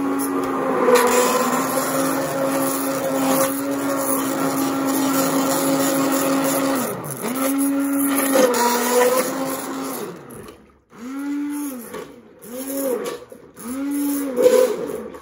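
White Cookworks hand-held stick blender puréeing roasted pumpkin and stock into soup in a stainless steel pot. Its motor runs steadily with a brief dip about seven seconds in, then from about ten seconds it is pulsed on and off four times, each pulse whirring up and winding down.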